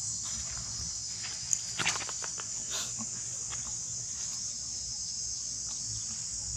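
Steady, high-pitched chorus of insects buzzing without a break, with a few short clicks and squeaks about two seconds in.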